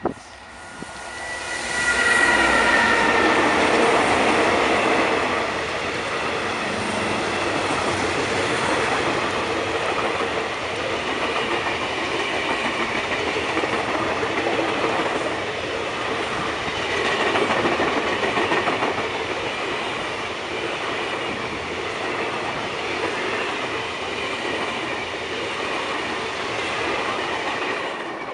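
The Blue Train passing, hauled by a class 20E electric and two class 35 diesel locomotives. The locomotives come by about two seconds in with a whine that falls slightly in pitch, then a long run of carriage wheels clattering over the rail joints.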